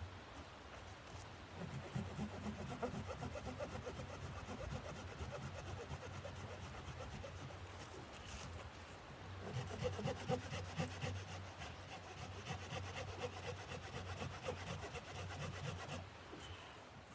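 Hand saw cutting wood in quick rasping strokes, in two spells with a short pause in the middle.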